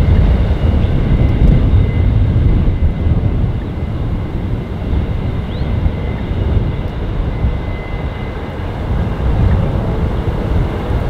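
Container freight train's wagons rolling over the rails: a heavy, steady low rumble of steel wheels on track, with a faint thin high whine above it.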